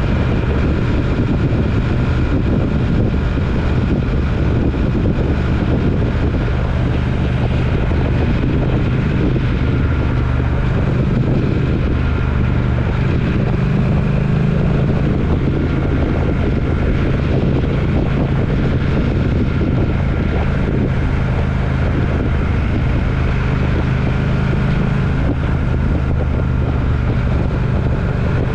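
Road vehicle under way: a steady low engine drone mixed with the hiss of road and wind noise, holding level without change.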